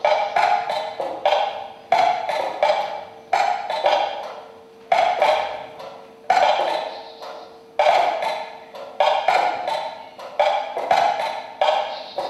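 Several mechanical metronomes ticking at different tempos, picked up by microphones, so their sharp wooden clicks fall at uneven intervals, each ringing on briefly. A faint steady tone sits underneath and weakens about seven seconds in.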